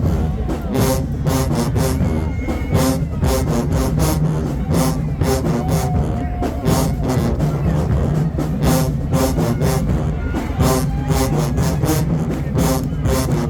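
Marching band playing live, brass holding pitched notes over a steady drumline beat.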